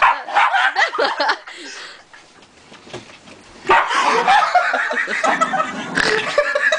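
Several people laughing: a burst at the start, a lull, then loud, continuous laughter from a little past halfway.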